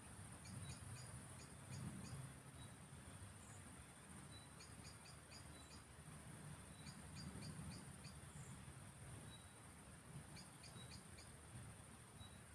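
Faint evening countryside chorus: a steady high insect trill, likely crickets. Over it, short runs of five or six quick chirps come every two to three seconds, above a soft low rumble.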